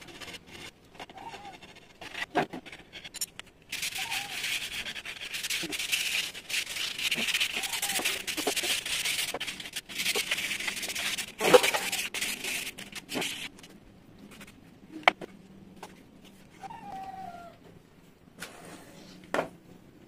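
Sandpaper rubbed by hand back and forth along a bare wooden frame, a rasping scratchy sound for several seconds through the middle. Scattered sharp knocks of wood and tools, the loudest a little past the middle.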